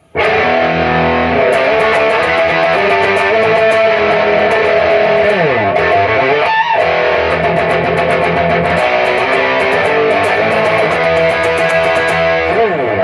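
Electric guitar played through a Revv Northern Mauler distortion pedal: distorted riffing with sustained chords and notes. A pitch slide down comes about five seconds in and another near the end.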